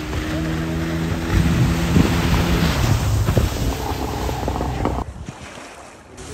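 Outboard motor of a small fishing boat running at a steady pitch as the boat comes in through the surf, over heavy wind on the microphone and breaking waves. The engine hum stops a little under halfway through, and the wind and surf drop off abruptly near the end.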